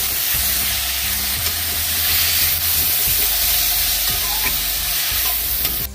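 Tomato slices and potato cubes sizzling in hot oil in a metal wok while a metal ladle stirs them, scraping against the pan.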